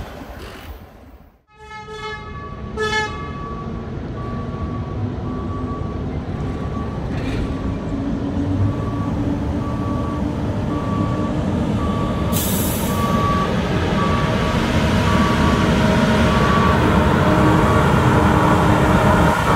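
Hi-rail maintenance truck running on the rails toward the listener, its engine and wheel noise growing steadily louder as it comes close. Two short horn toots sound near the start, and a back-up alarm beeps about once a second while it travels box end first, with a brief hiss midway.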